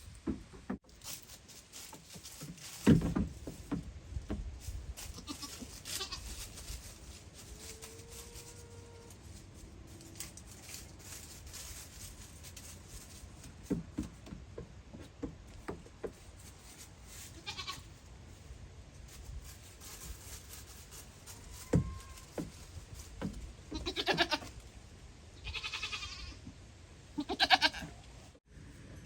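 Goats bleating: three short bleats close together near the end, with a sharp thump about three seconds in and a few lighter knocks.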